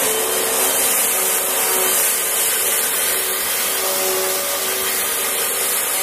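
Hoover WindTunnel 3 upright vacuum cleaner running at full speed while it is pushed over carpet: loud, steady rushing air over a constant motor tone.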